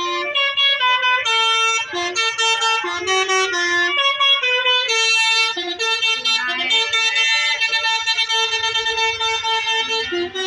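Bus telolet horn playing a tune: the multi-tone air horns sound a continuous run of short, changing notes.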